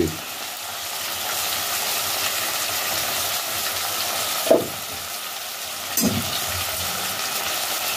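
Chopped vegetables sizzling as they pan-fry in a pot, a steady hiss with two brief louder sounds about four and a half and six seconds in.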